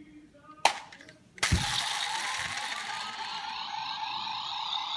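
Power Rangers Dino Charge Morpher toy with a Dino Charger inserted: a sharp click, then about a second later its small speaker plays a long electronic sound effect full of sweeping, rising tones.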